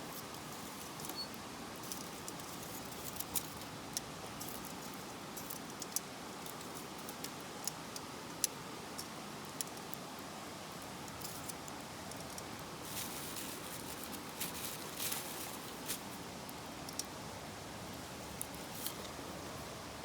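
Wood campfire burning: a steady hiss of flames with frequent sharp crackles and pops, coming thicker about two thirds of the way through.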